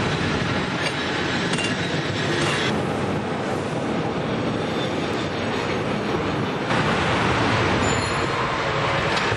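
San Francisco tram running along its rails: a continuous rattle and rumble of wheels on track. The higher hiss drops back about three seconds in and comes back louder near seven seconds.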